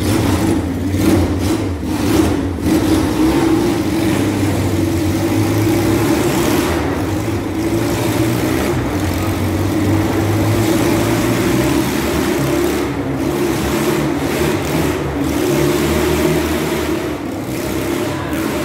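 Vintage motorcycle engine running at a steady, fairly even speed as the bike rides round the wooden wall of death, with only slight rises and falls in the note.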